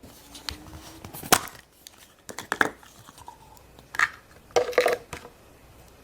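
Hands handling plastic play-dough tubs and molds: a run of irregular plastic clicks, taps and rustles, the loudest about a second in and again between four and five seconds in.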